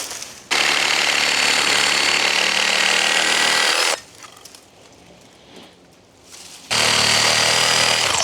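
A reciprocating saw (Sawzall) cutting through tree roots in two runs. The first lasts about three and a half seconds; the second starts near the end and runs about two seconds, with a short quieter gap between them.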